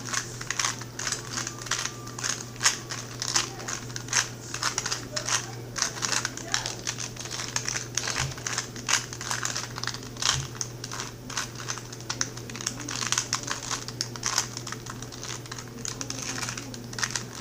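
Plastic 2x2 Rubik's cube being turned rapidly by hand, a dense, irregular run of clicks and clacks from the layers snapping into place during a speed solve. A steady low hum runs underneath.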